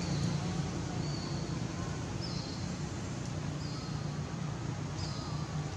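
Outdoor background: a steady low rumble under short, high, level chirps that repeat roughly once a second.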